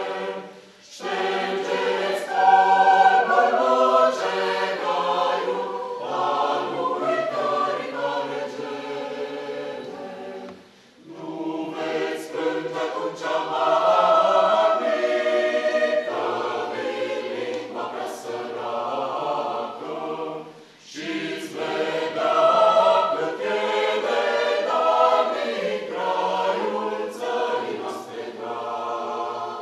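Mixed choir of men's and women's voices singing unaccompanied, in phrases about ten seconds long with short breaks between them.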